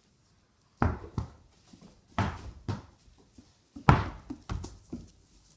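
A large ball bouncing on a wooden plywood floor and being kicked, about half a dozen sharp thuds with a short ring after each, the loudest about four seconds in.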